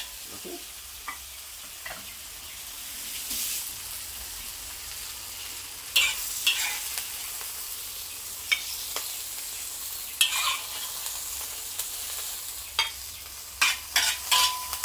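Chives, tau kwa and dried shrimp sizzling in a hot wok while a metal spatula scrapes and knocks against it, stirring the food and scooping it out. The knocks come a few at a time through the middle and in a quick run near the end.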